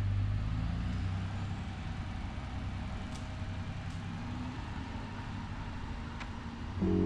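Refuse truck's diesel engine running, a steady low rumble with a few faint clicks.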